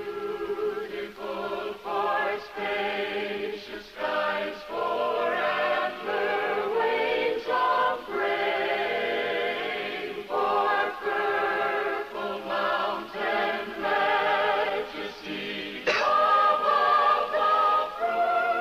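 A mixed choir singing in harmony, in sung phrases with vibrato. A high note is held from about three seconds before the end.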